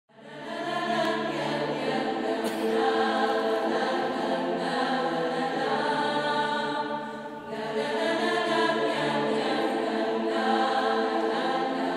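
Mixed a cappella chamber choir singing sustained chords in many voices. It fades in over the first second and dips briefly about seven seconds in before the chord swells again.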